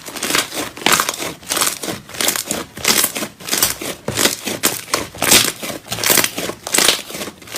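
Slime being squeezed and worked by hand, making repeated wet crackling, crinkling squishes about two a second.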